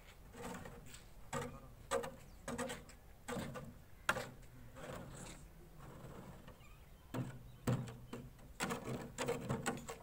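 Irregular knocks and scrapes, coming singly or in small clusters with short pauses between them.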